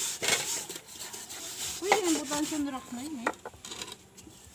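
A hand scouring the soot-blackened outside of a rice pot with wet sand: rhythmic gritty rubbing strokes that die away a little past halfway. The scrubbing is taking off the soot left by cooking over a wood fire. A short wavering voice-like sound comes in around the middle.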